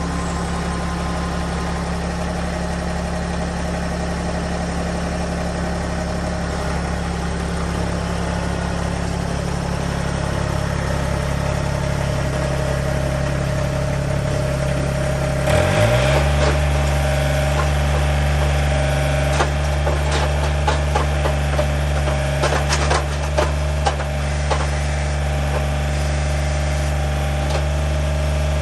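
An engine running steadily at idle. About halfway through its note shifts slightly up, and a scatter of sharp clicks and knocks follows over the next several seconds.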